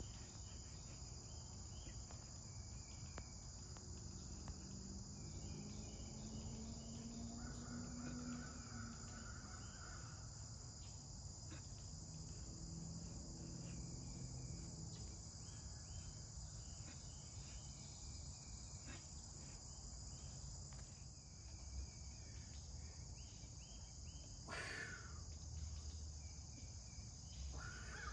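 Steady high-pitched chorus of insects, with faint scattered chirps over it and one brief sharp sound near the end.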